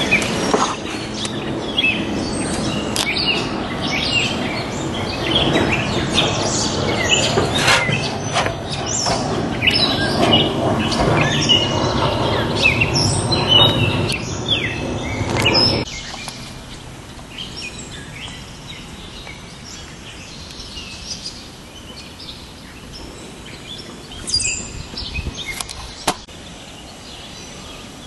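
Small birds chirping many times over a steady outdoor rush of noise, which drops away suddenly about sixteen seconds in; a few more chirps come near the end.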